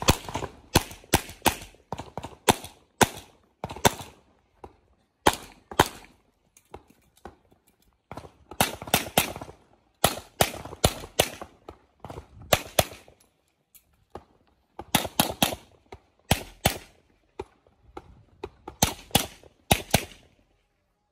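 Handgun shots fired in quick pairs and short strings, with gaps of a second or two between groups, each shot trailing a short echo.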